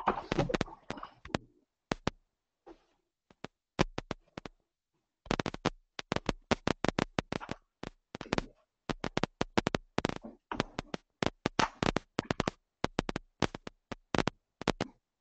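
Rapid, irregular clicks and crackles coming over an open conference-call line, a few scattered at first, then several a second from about five seconds in, with silence between them.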